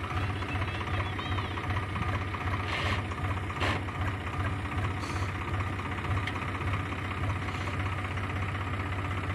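Swaraj 735 FE tractor's three-cylinder diesel engine idling steadily, a low even chug.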